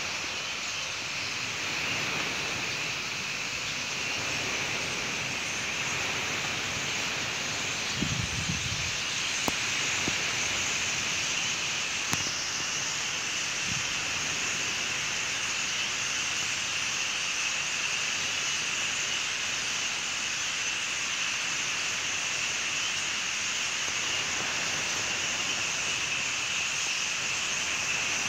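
A huge flock of starlings chattering together as one dense, steady din. There is a brief low rumble about eight seconds in.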